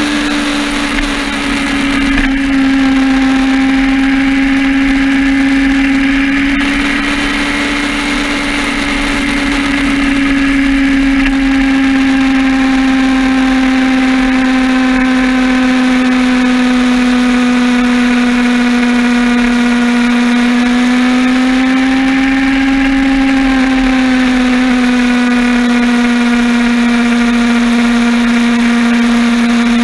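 Honda Hornet inline-four motorcycle engine running at a steady highway cruise, heard from on board over a constant rush of wind. The engine note sags a little in the first couple of seconds and lifts briefly about 21 seconds in before settling again.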